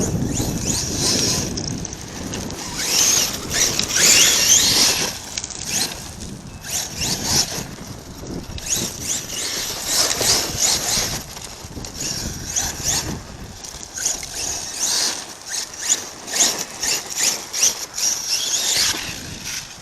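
Arrma Kraton 6S RC truck running an 8S brushless power system, driven in repeated bursts of throttle: a high electric-motor whine that rises and falls, over the hiss of the drivetrain and the tyres on loose ground.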